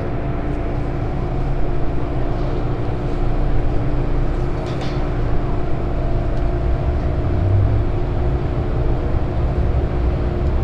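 MTR M-train running along the line, heard from inside the car: a steady low rumble of wheels on track with a constant motor hum, and a short clatter about halfway.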